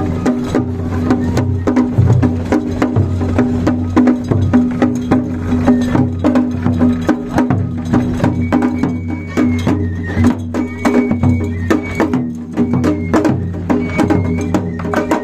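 Japanese festival float music: the float's large taiko drum and other percussion keep up a dense, steady beat, and high piped notes join about eight seconds in.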